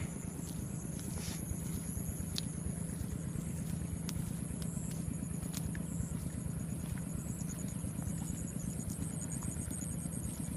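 A small engine running steadily at an even speed, its low hum pulsing rapidly, with a few sharp clicks or knocks over it.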